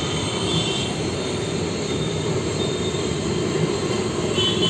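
Steady low rumbling noise of a busy roadside street-food stall, with a faint high squeal about half a second in and another near the end.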